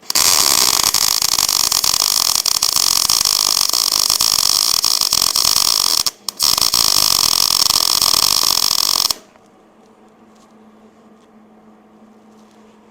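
Wire-feed welder arc crackling steadily as a weld bead is laid, with a short stop about six seconds in, then about three seconds more of welding before it cuts off sharply.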